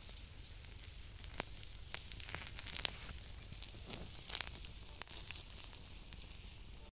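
Small open fire of dry twigs crackling, with irregular sharp pops over a steady hiss, the pops coming thicker from about a second in.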